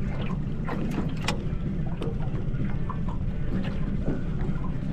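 A small fishing boat's motor running steadily as a low drone, with a few light ticks as a spinning reel is wound in.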